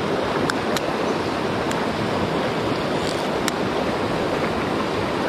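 Steady rushing of a mountain stream's flowing water, with a few light clicks now and then.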